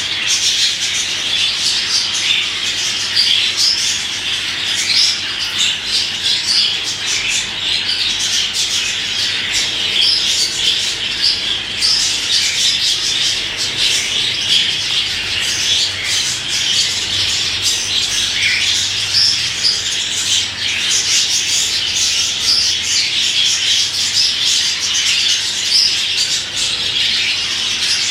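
Budgerigar chattering and squawking without a break, mixed with short sharp clicks and jingles from a bunch of keys it is playing with.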